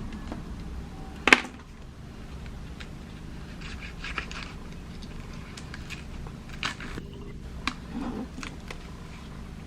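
Scattered sharp clicks and light scraping of small repair tools working at a phone's shattered screen glass and frame, with one louder click about a second in.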